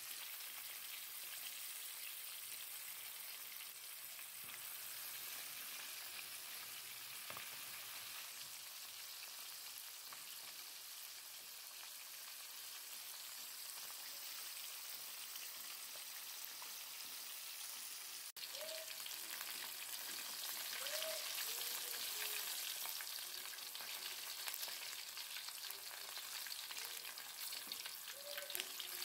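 Flour-dusted chicken wings deep-frying in hot oil in a wok: a steady bubbling sizzle of the oil around the pieces. It drops out briefly about two-thirds in and comes back a little louder.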